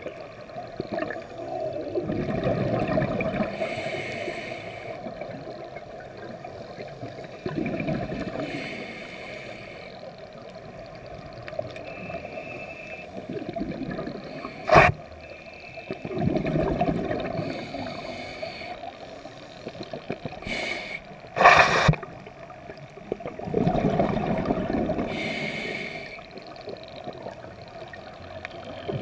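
Scuba diver breathing through a regulator: a hissing inhale, then a gurgling rush of exhaled bubbles, repeating about every six to eight seconds. Two sharp knocks stand out, one about halfway through and a louder one a few seconds later.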